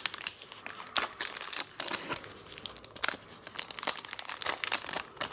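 Ice lolly wrapper crinkling and tearing as it is pulled open by hand: a dense run of irregular crackles, with a few sharper snaps about a second in and about three seconds in.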